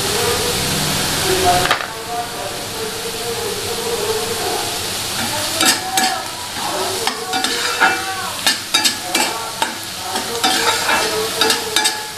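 Onions and green chillies sizzling in oil in a stainless-steel frying pan, with a metal spatula scraping and clacking against the pan as they are stirred; the clacks come thick and fast from about halfway through. A louder steady hiss with a low hum cuts off suddenly under two seconds in.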